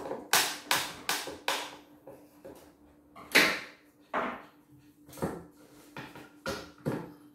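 A screwdriver working screws out of the wooden battens of a shipping crate, making a run of short creaking, scraping strokes. Four come quickly near the start, a louder one about three seconds in, and several more spaced out towards the end.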